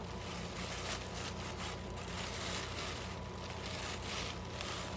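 Thin plastic shopping bag crinkling and rustling in irregular bursts as it is handled and rummaged through.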